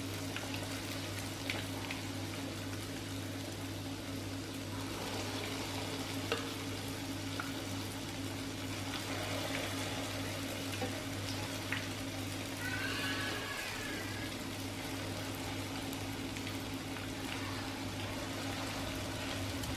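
Patties of instant rice porridge bound with egg sizzling steadily in shallow oil over low heat, with a few light clicks and a steady low hum underneath.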